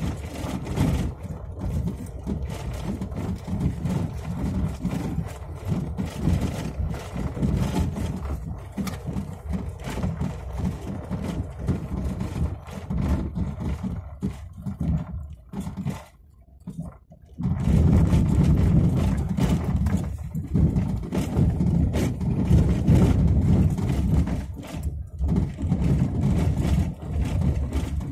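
A car driving over a rough, potholed road patched with coarse crushed stone: a steady low rumble of tyres and engine, broken by frequent knocks and rattles from stones and holes. The rumble drops away briefly about halfway through, then returns louder.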